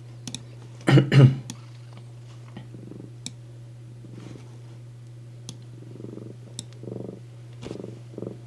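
Domestic cat purring steadily and close up. Two short, louder sounds come about a second in, and a few faint clicks are scattered through.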